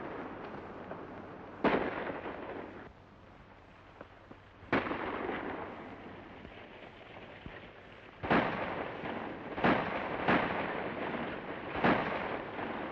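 Gunshots with long echoing tails, six in all: two spaced a few seconds apart, then four in quicker succession in the last five seconds.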